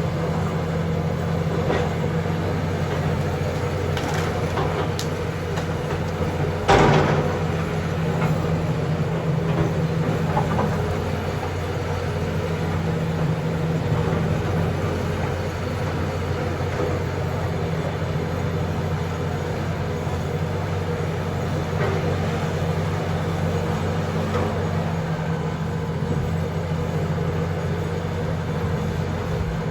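John Deere backhoe's diesel engine running steadily, with a single loud clank about seven seconds in.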